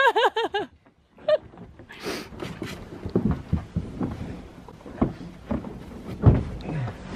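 A voice singing briefly at the start, then scattered crunches and low thumps of people stepping about and scooping and packing snow, with the loudest thump about six seconds in.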